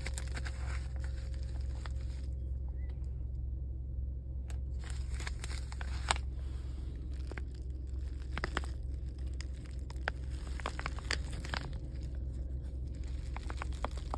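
Clear plastic wrapping crinkling and crackling as it is handled and worked open, irregular crackles that grow thick from about four seconds in, over a steady low hum.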